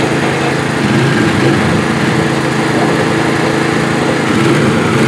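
Small engines of a riding lawn mower and a four-wheeler running together, their pitch wavering a little.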